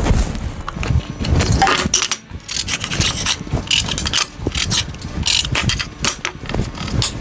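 Irregular clicks, clinks and knocks of small metal parts and wood being handled on a workbench, as V-groove bearings and a steel rule are picked up and set down on a plywood plate.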